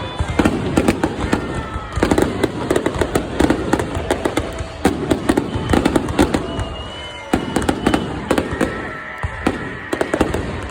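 Aerial fireworks bursting in rapid succession, a dense run of booms and crackling reports with brief lulls between volleys.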